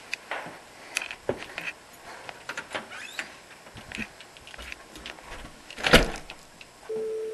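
Footsteps and small knocks of someone walking through a house, then a door handled with a loud knock about six seconds in. A steady humming tone starts near the end.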